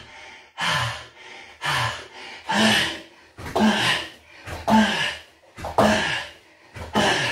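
A man breathing hard through V sit-ups: a forceful exhale with a short grunt on each rep, about one a second, with quieter in-breaths between.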